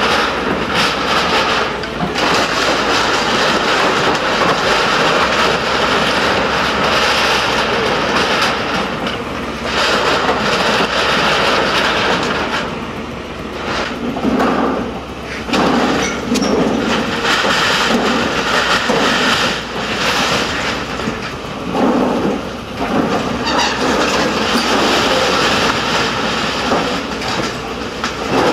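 SANY hydraulic excavator demolishing a small building: the engine running under a continuous din of crumpling and crashing corrugated metal sheeting and breaking timber as the bucket tears the structure apart. The noise eases briefly a few times past the middle.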